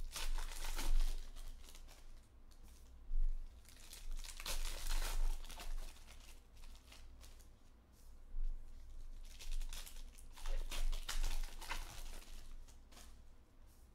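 Trading-card pack wrappers being torn open and crinkled in the hands, in several bursts of rustling with short lulls between them.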